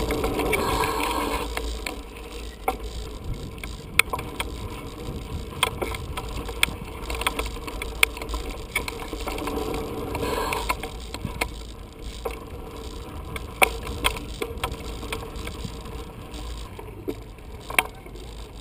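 Bicycle rolling along a dirt track: tyre noise on the dirt, with the freewheel ticking and sharp knocks and rattles from the bike over bumps every second or two.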